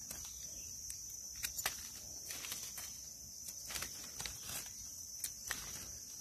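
Dry leaf litter crackling in scattered short clicks as hands pick mushrooms from the forest floor, over a steady high-pitched insect drone.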